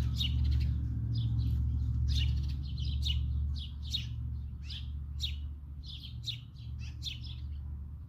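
Small birds chirping: many short, quick, falling chirps, several a second, over a steady low rumble.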